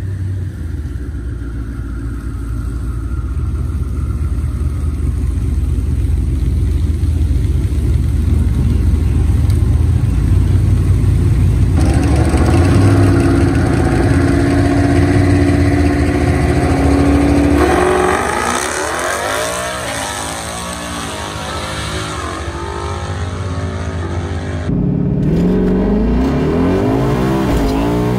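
Twin-turbocharged 2019 Ford Mustang GT's 5.0 Coyote V8 doing a burnout, held at high revs with the rear tyres spinning, then holding steady revs before launching hard, the engine pitch climbing as it accelerates. About three-quarters of the way through, the sound switches to inside the car, with the engine still pulling and rising in pitch.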